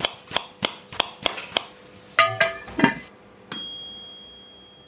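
Outro sound effect: chopping strokes on a cutting board, about three a second, then a few short clinks, and a single bright ding about three and a half seconds in that rings and fades over about a second.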